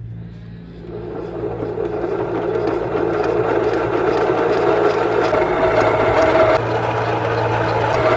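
Tractor engine running steadily, getting louder from about a second in.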